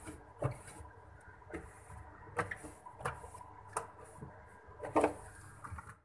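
Scattered knocks, clicks and rubbing against the plastic lining of a refrigerator while its inside is wiped clean, over a faint steady hum. The loudest knock comes about five seconds in.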